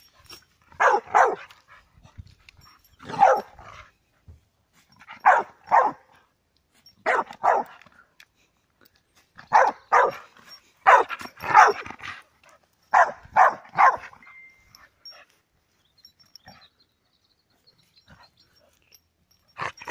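Dog barking excitedly in play, in quick runs of one to three barks about every two seconds. The barking stops about 14 seconds in, with one more bark at the very end.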